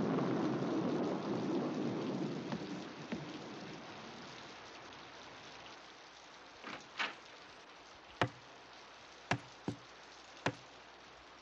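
A roll of thunder fades away over the first few seconds under steady rain. Then a handful of short, sharp knocks come at uneven intervals in the second half.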